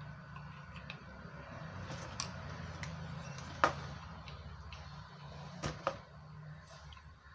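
Soft handling noises and a few sharp clicks from a Daiwa BG spinning reel as its handle is fitted and the reel is turned in the hands. The loudest click comes about halfway through and two more follow close together later, over a low steady hum.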